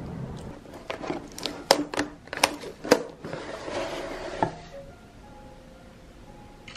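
A run of sharp taps and clicks, then a papery rustle as a cardboard box is handled and opened, over soft background music.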